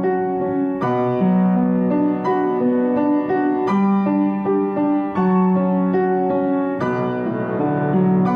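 Background music played on piano: slow chords over a held low note, with a new chord struck about every one and a half seconds.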